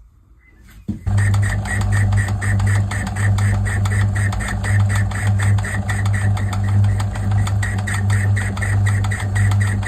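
A small metal lathe starts up about a second in and runs, spinning a lopsided feed pump casting in its three-jaw chuck against the tailstock live centre. It gives a steady electric motor hum with a rapid, even ticking over it.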